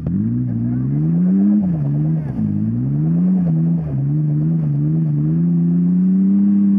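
Ford Explorer's engine revving up and down repeatedly as it works its way over rough off-road ground, then holding a steadier, slowly rising pitch over the last couple of seconds.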